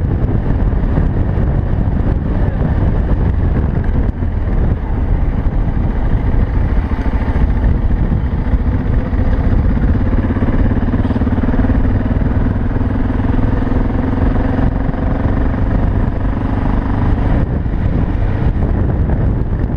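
Single-cylinder engine of a BMW 650 GS enduro motorcycle running steadily under way, under a dense low rumble. A steadier engine note stands out in the middle stretch, from about eight seconds in to about seventeen.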